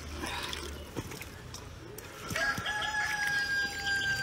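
A rooster crowing once, a long held call that starts a little past halfway through. Before it, a few light clicks of metal tongs against the wok and a steel bowl.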